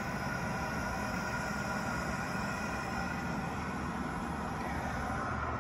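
Toilet fill valve open and letting water into a five-gallon plastic bucket: a steady, unbroken hiss of running water as the bucket fills.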